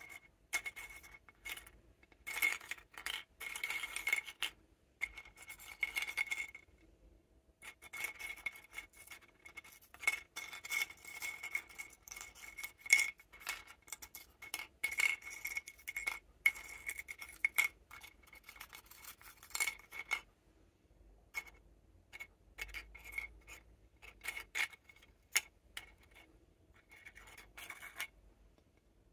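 Small crunchy butter cookies pushed and shuffled by hand across a ceramic plate: bursts of light scraping and clicking, with a faint high ring under them. The bursts pause briefly a couple of times and stop shortly before the end.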